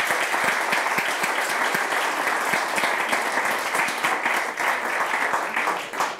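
An audience clapping, the applause thinning into separate claps near the end.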